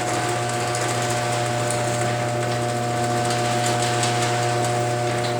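Chamberlain HD200D chain-drive garage door opener running steadily as it closes the door: an even motor hum and whine with faint ticking from the drive.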